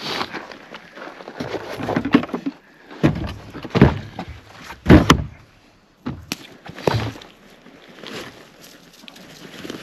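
Firewood being broken and set down for a small campfire: several irregular thunks and cracks, the loudest about four and five seconds in.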